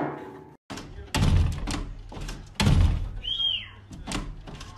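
A large dog jumping up against a glass patio door: its front paws bang the door and make it rattle, with two heavy thuds about a second and a half apart.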